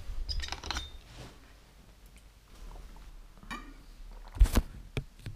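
Sips and swallows of water drunk from a water bottle, with small clicks. About four and a half seconds in there is a single sharp knock, the loudest sound, followed by a lighter click.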